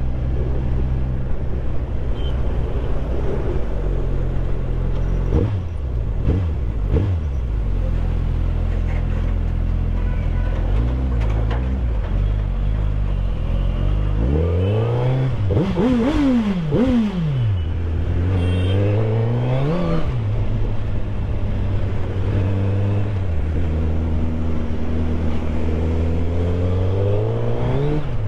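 Sport motorcycle's engine under way, mostly running steadily at low revs. About halfway through the revs rise and fall several times in quick succession, and near the end they climb again.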